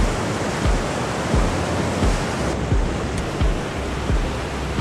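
Steady rush of a mountain river or waterfall, under background music with a slow, even low beat of a little under one and a half thumps a second.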